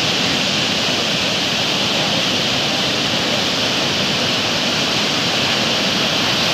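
Surf breaking on a sandy beach: a steady, unbroken rushing noise.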